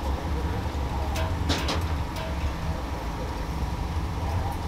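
A small inkjet printer feeds out a page with faint clicks and whirs, over a steady low rumble.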